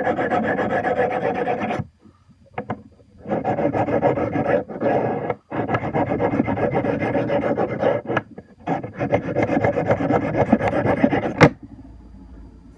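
Knife blade scraped back and forth on an oiled sharpening stone of a Smith's TRI-6 Arkansas Tri-Hone set, a steady rasping in runs of a few seconds broken by brief pauses. The strokes end with a sharp click about a second before the end.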